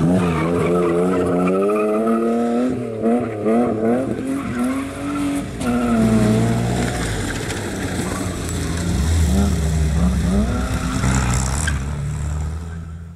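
Skoda 105 rally car's engine under hard driving, its pitch climbing and dropping again and again as the revs rise and the driver lifts and shifts.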